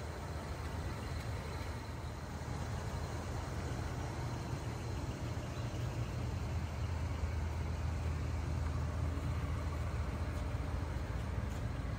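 1978 Cadillac Coupe DeVille's V8 idling steadily, a low even hum that grows a little louder toward the end.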